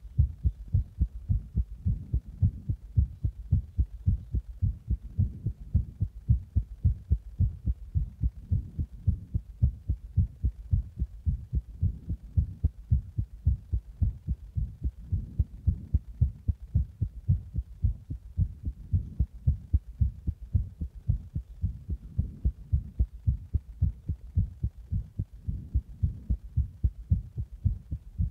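Human heartbeat picked up close to the chest: steady, regular low thumps with nothing else over them. It is the heart after a Monster energy drink and compression, which the uploader calls a tormented heart.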